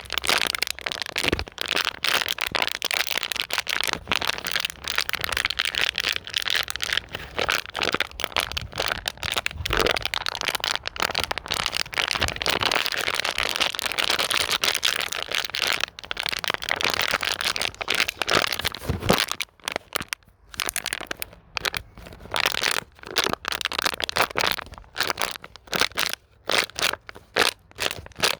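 Plastic bottle being squeezed and crinkled by hand, a dense run of rapid crackling and cracking that thins out about two-thirds of the way through into separate cracks with short pauses.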